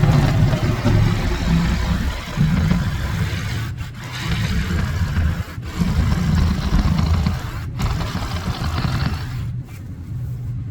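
A vehicle engine running with scraping, as the fiberglass boat hull is dragged onto the trailer.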